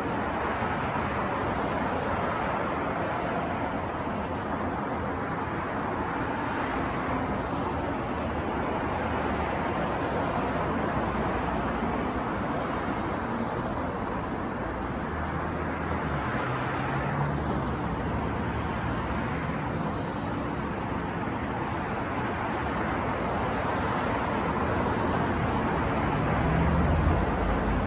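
Steady city street traffic noise: a continuous wash of passing cars and engines, with a low engine hum swelling about two-thirds of the way through and louder vehicle rumble near the end.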